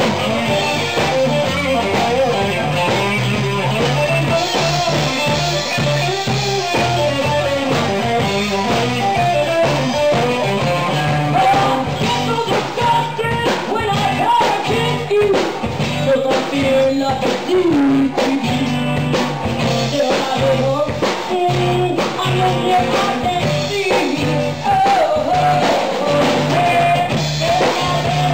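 Live blues band playing: a woman singing into a microphone over electric guitar, electric bass and a drum kit.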